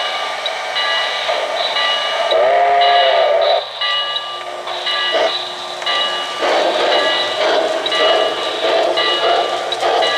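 O-gauge model steam locomotive's sound system as the train pulls out: a whistle blast about two seconds in, then steam chuffs picking up with the train rolling on the track.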